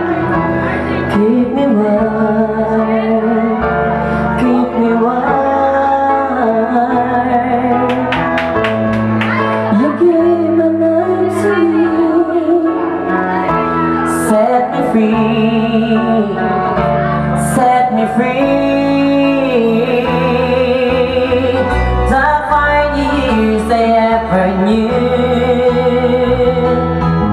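A solo singer performing a song live into a handheld microphone, with instrumental backing.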